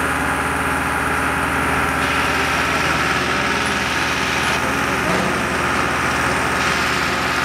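An engine running steadily at a constant speed, with an even, unbroken low hum.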